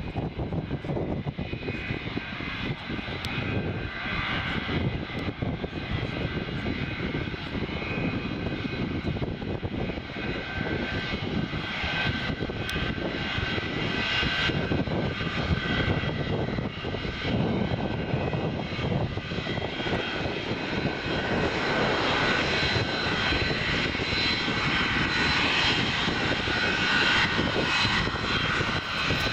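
Two English Electric Lightning jets taxiing, their Rolls-Royce Avon turbojets running with a steady jet rumble and high whistling whine. The whine grows louder over the last third as the aircraft come closer.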